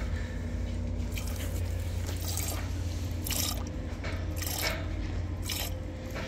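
Hand-milking a Scottish Highland cow: streams of milk squirting from the teats into a stainless steel pot already partly full of milk, in short hissing spurts roughly once a second, over a steady low hum.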